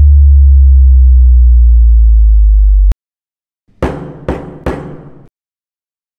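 A very loud, steady, deep bass tone, a synthetic film sound effect, cuts off suddenly about three seconds in. Then come three heavy knocks about half a second apart: a hammer banging on a door.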